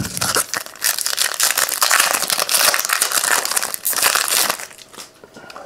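Foil trading-card pack wrapper crinkling as it is torn open by hand. The crackling stops about four and a half seconds in.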